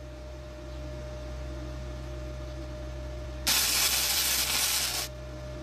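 Flux-core welding arc on thin mild-steel exhaust pipe, starting about three and a half seconds in and crackling for about a second and a half before stopping. The run is too hot for the thin pipe, as the welder judges it just afterwards.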